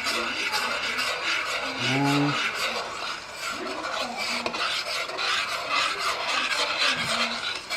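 A spoon scraping and stirring round a pan of creamy sauce in a steady, rasping rhythm.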